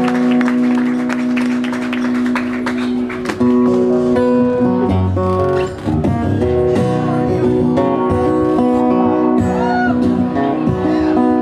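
Acoustic guitar played solo: a chord rings out for about three seconds, then the notes and chords change every second or so in a loose, unhurried pattern.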